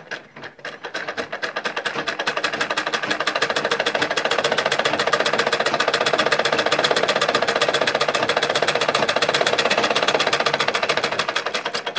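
Domestic straight-stitch sewing machine stitching fast, a rapid even clatter of needle strokes that builds up speed over the first few seconds, runs steadily, and slows near the end. The machine has just been oiled and its upper thread tension loosened, and it runs at speed without the thread breaking.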